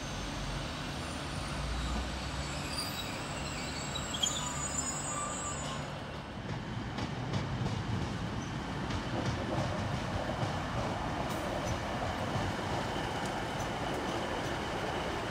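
Passenger trains moving through the station: a diesel multiple unit's engine hum in the first few seconds, then wheels running over the rails with faint squealing in the later part.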